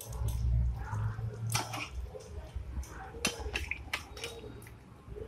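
Spatula scraping and clicking against a metal kadai as thick curry gravy is scooped out, with wet squelches of the gravy. A low rumble of handling noise in the first two seconds.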